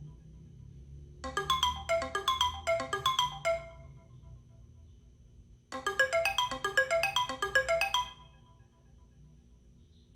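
Background music: two short phrases of quick, bright, bell-like struck notes, each about two to three seconds long, separated by quieter gaps over a low steady sound.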